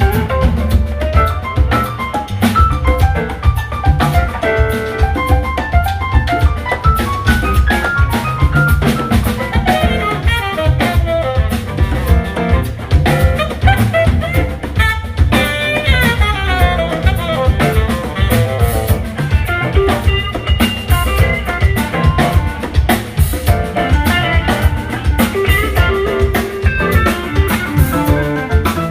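Live band playing an instrumental passage: drum kit keeping a busy, steady beat of sharp hits under bass and guitar, with melodic lines moving over the top.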